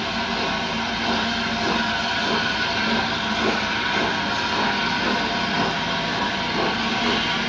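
Steam locomotive moving slowly along the platform road, a steady hiss with faint regular beats about twice a second.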